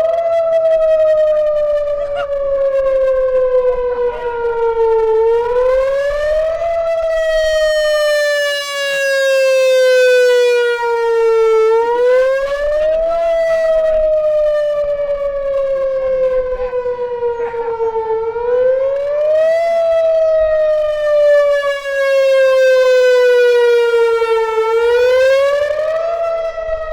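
Outdoor emergency warning siren sounding loudly for a test. Its tone climbs quickly in pitch, then slides slowly down, over and over, about every six and a half seconds.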